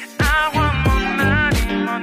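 Background music with a steady drum beat and a wavering melodic line over it.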